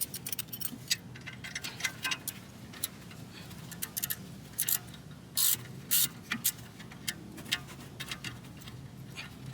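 Irregular metallic clicking of a pass-through ratchet and Torx bit working the front sway bar end link nut, with scattered louder clicks of tools being handled.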